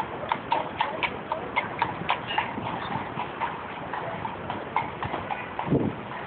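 A mounted police horse's shod hooves clip-clopping on the paved street in an uneven run of sharp clicks, several a second, with a brief louder low sound near the end.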